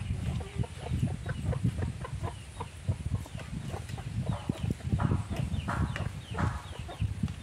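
Chickens clucking, with short high chirps among the clucks.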